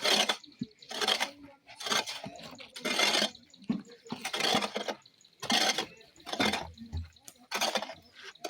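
Small hand hoe (jembe) digging into soil, a rough scraping stroke about once a second.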